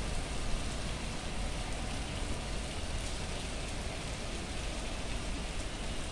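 Steady rain falling on a wet street, an even hiss with a low rumble underneath.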